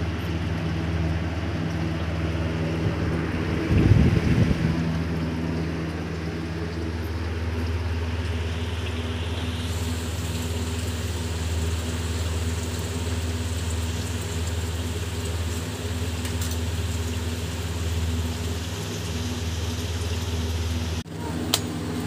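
Steady low mechanical hum over constant hiss, with a brief loud low rumble about four seconds in.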